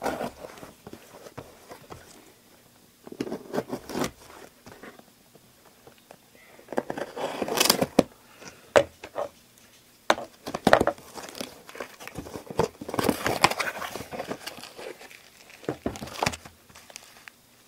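A small mailed package being opened by hand: its box and packing torn open and rustled, crinkling and crackling in irregular bursts with short pauses between.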